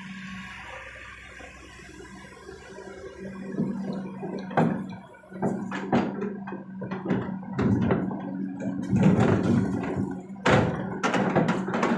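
Kobelco SK200 excavator's diesel engine running steadily. From about four seconds in, a rapid, irregular series of knocks and thuds follows as the bucket dumps its load into a dump truck's bed.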